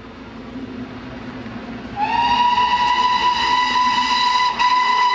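Whistle of GWR King class steam locomotive 6024 King Edward I, sounded about two seconds in: a short upward slide into one long, steady high note. Beneath it is the rumble of the approaching train, growing louder.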